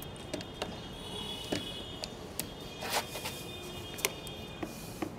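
Scattered light clicks and knocks, about ten spread over a few seconds, of a motorcycle battery being handled and positioned in its tray before it is pushed into place.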